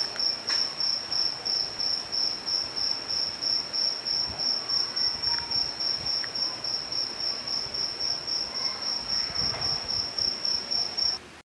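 A cricket chirping: a single high note repeating in an even, rapid pulse of about four or five chirps a second, which cuts off suddenly near the end.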